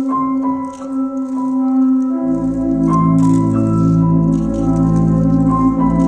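Instrumental music with an organ-like keyboard sound: a held tone under a short repeating higher figure, joined about two seconds in by deep sustained low chords.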